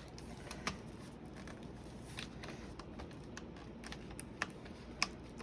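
A few faint, scattered clicks and taps from handling a laptop keyboard as it is worked loose from the laptop's chassis.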